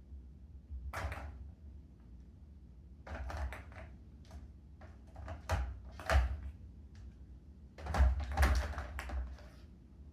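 Plastic balls clattering and knocking around inside a ball-track cat toy as a cat bats at them. The clicks and short rattles come in irregular bursts, and the loudest cluster is near the end.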